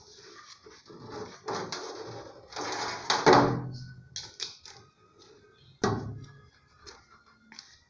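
Irregular handling noises in a small room: scraping and rustling, with a sharp knock about six seconds in.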